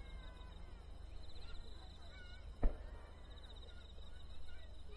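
A lull in a fireworks display, broken by one sharp firework bang a little past halfway. Faint short calls and a steady high pulsing chirr sit in the background.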